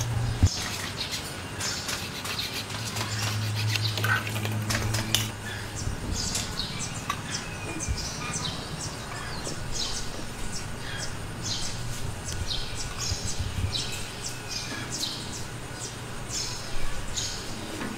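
Small birds chirping repeatedly, with one sharp knock about half a second in and a low hum that comes and goes.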